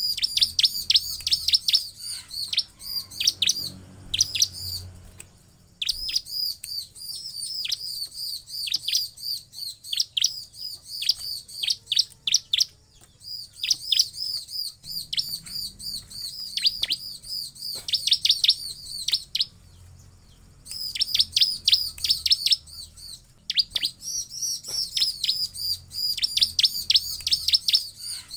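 Bar-winged prinia (ciblek) calling in fast runs of sharp, high chirps, about four or five a second, broken twice by short pauses.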